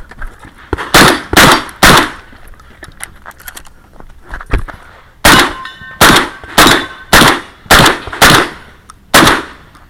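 Shotgun firing during a practical shooting stage: three quick shots, a pause of about three seconds with lighter clicks and knocks, then seven more shots about half a second apart. A metallic ringing follows some of the shots.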